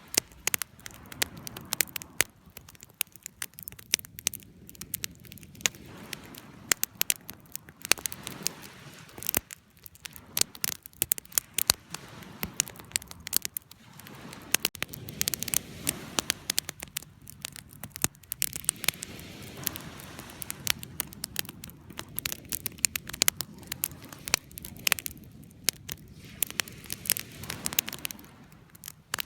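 Campfire burning, with frequent sharp, irregular crackles and pops of wood over a low, steady rush of flame.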